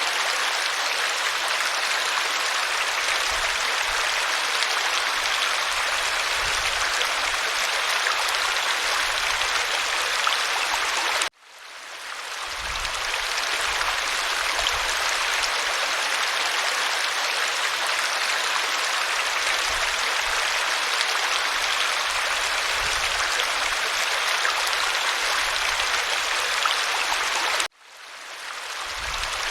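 Waterfall rushing with a steady, even hiss of falling water. It cuts off abruptly twice, about 11 seconds in and near the end, and each time fades back in over a second or two.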